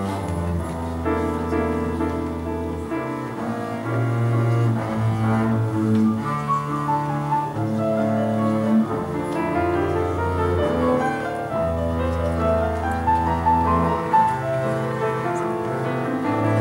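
Piano and double bass playing together: the bass bows long, low held notes, each lasting a second or more, while the piano plays a moving line above.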